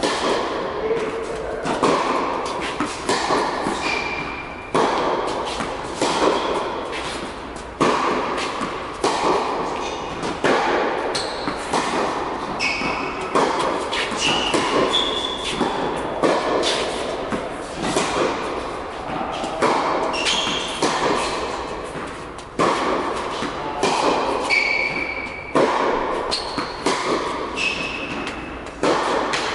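Tennis rally on an indoor hard court: racket strikes and ball bounces, about one every second or so, echoing in the hall, with short high squeaks of shoes on the court.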